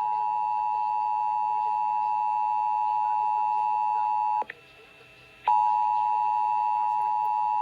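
Emergency Alert System attention signal: the steady two-tone alert tone that comes before an EAS test message. About four and a half seconds in it cuts out for about a second, then resumes.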